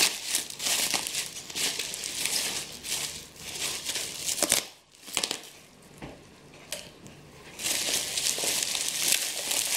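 Plastic bubble wrap and a plastic bag crinkling and rustling as they are pulled apart by hand, with a lull of a few scattered crackles for about three seconds past the middle before the crinkling picks up again.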